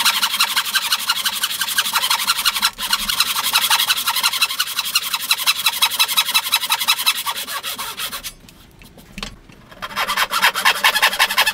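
Hand-pulled wooden frame saw cutting through a block of wood, a fast, even rasping of the teeth in the cut. It stops about eight seconds in and starts again a second or so later.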